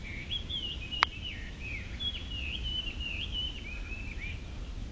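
A songbird singing a continuous warbling song of quick up-and-down whistled notes. A single sharp click about a second in, over a low steady rumble.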